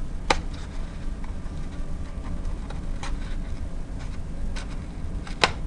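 Paper being cut along a seam: a few scattered, crisp clicks of the cut and handling over a steady low hum.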